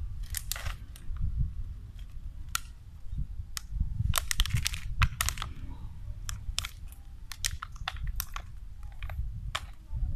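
Irregular sharp crackles and crunches, bunched most thickly about four to five seconds in, over a steady low rumble.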